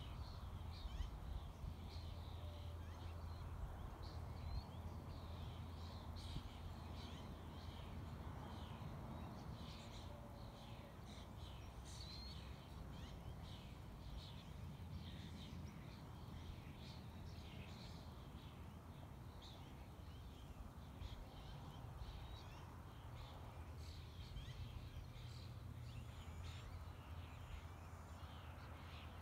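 Faint open-country ambience: many short, high chirps scattered throughout over a low steady rumble.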